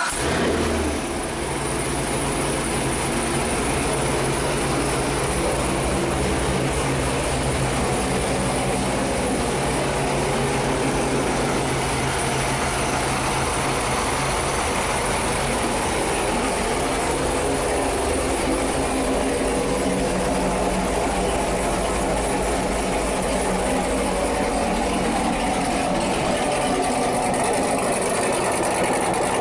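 Supercharged 6.2 L LT4 V8 of a C7 Corvette Z06, with a custom-grind cam and a Corsa axle-back exhaust, firing up with a brief flare. Within about a second it settles into a steady idle.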